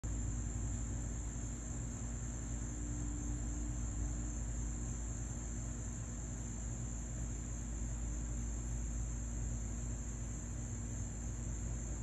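A steady, high-pitched insect chorus, unchanging throughout, over a low steady rumble.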